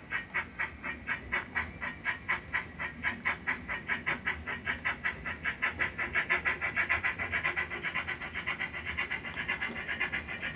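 Sound-equipped model Great Western steam tank locomotive running on DCC, its onboard speaker playing a steady steam-exhaust chuff at about four beats a second.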